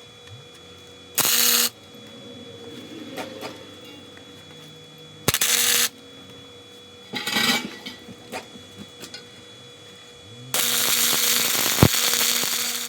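Budget wire-feed welder striking the arc in four short bursts of crackling hiss, the last running about two seconds.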